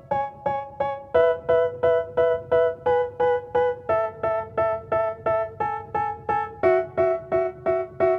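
Background music: a keyboard playing short repeated chords, about three a second, moving to a new chord every few seconds.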